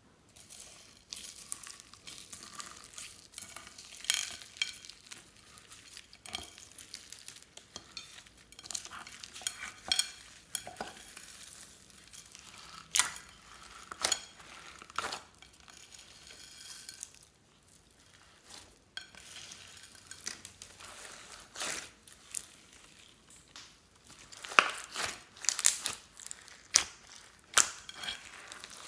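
Slime being squished, stirred and stretched by hand, giving irregular sticky clicks, pops and crackles, with a short quiet pause about two-thirds of the way through.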